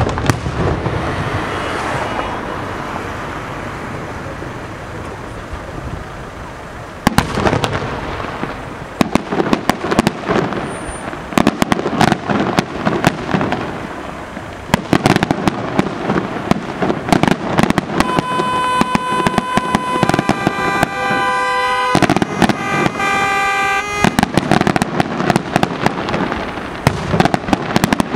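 Fireworks display: an aerial shell bursts with a bang at the start and its sound trails off, then from about a quarter of the way in, dense crackling and sharp bangs of many shells continue to the end. A steady pitched tone with overtones is held for several seconds just past the middle.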